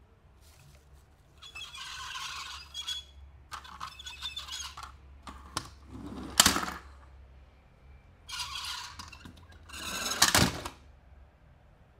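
Toy packaging being handled and opened: several bursts of crinkling and rustling, with a sharp snap about halfway through and another near the end.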